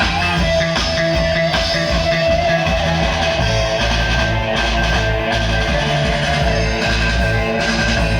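Music led by guitar, loud and continuous without a break.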